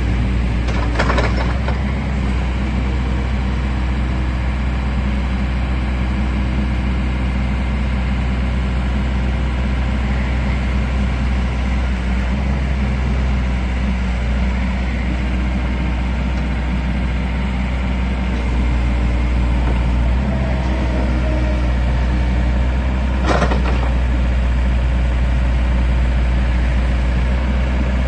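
Takeuchi TB175 wheeled excavator's diesel engine running steadily, a little louder from about two-thirds of the way in. Two brief hisses break in, one near the start and one about 23 seconds in.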